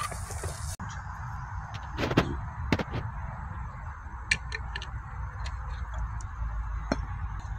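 Camping gas stove burner running steadily under an empty aluminium frying pan, with scattered light clicks and ticks, the sharpest about two and three seconds in. A short hiss cuts off under a second in.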